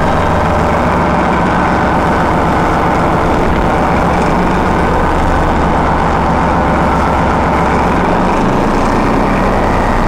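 The Paxman 6YJXL diesel engine of a Class 14 diesel-hydraulic locomotive, running steadily at idle on its first start-up after overhaul. A thin steady whine sits above the engine note.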